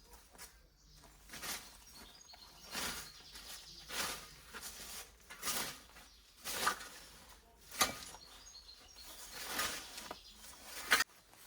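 Hand scythe swishing through tall grass in a steady rhythm, about eight strokes a little over a second apart, with faint bird chirps between.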